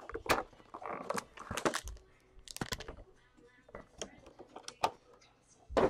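Cardboard trading-card hobby box being opened by hand: scattered light taps and scrapes as the lid and inner flap are lifted and handled, with a louder knock near the end.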